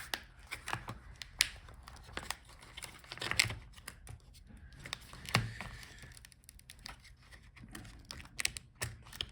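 Hands working inside an open laptop: scattered light clicks and short scrapes of small tools and plastic parts being handled, with a few sharper clicks spaced a couple of seconds apart.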